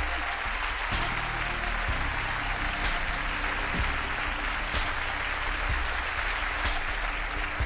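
Large audience applauding steadily, over background music with a low bass.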